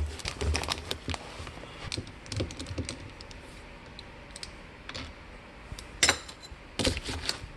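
Scattered light clicks and taps of a screwdriver and plastic valve parts being handled while the last screw is worked out of a water softener's control valve, with two louder clatters near the end.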